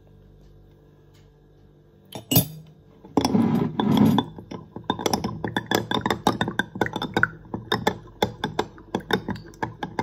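A small spoon stirring lemon juice and honey, clinking rapidly against the container, several clinks a second from about halfway in. Before that comes a single sharp knock and a brief scraping noise.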